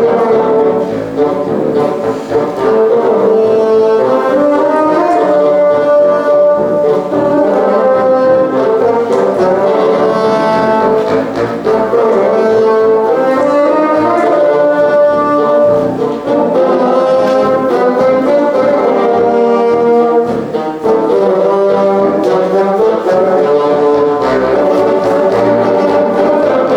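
Brass band music playing continuously: a melody of held and moving notes over accompanying parts, with no break.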